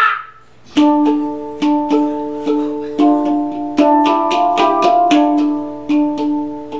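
A Hang, a steel handpan, played with the fingers: single struck notes that ring on, starting about a second in, with a quicker run of several overlapping pitches in the middle before it settles back to slower notes.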